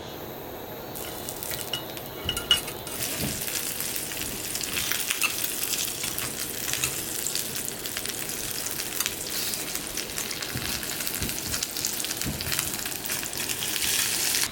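Food frying and sizzling in a hot pan with dense crackling, stirred, with a few light clinks of a utensil about two seconds in.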